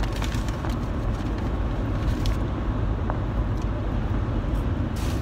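Steady low road and engine rumble inside a moving car's cabin, with a few faint light clicks.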